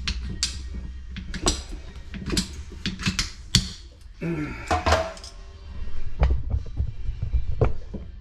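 Repeated sharp clicks and clunks of plumbing fittings and tools being handled, with a short sliding squeak about four seconds in.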